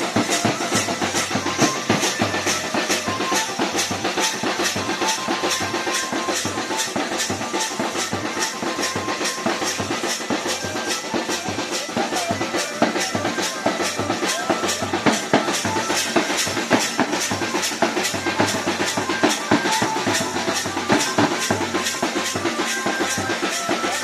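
Dance music with a fast, steady drum beat, about two and a half beats a second.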